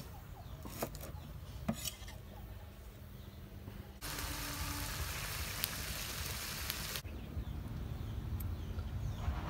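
A couple of sharp knife strokes on a wooden chopping board, then snails with lemongrass and chili bubbling and sizzling in a wok, a loud even hiss that starts suddenly about four seconds in and cuts off about three seconds later.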